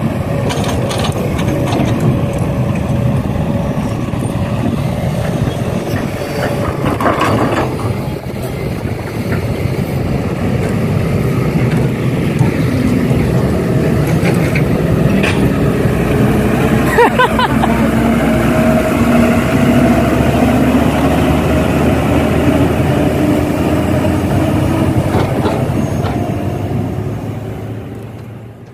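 A vehicle engine running steadily with a low rumble; its note climbs slowly in the second half, and the sound fades out at the end.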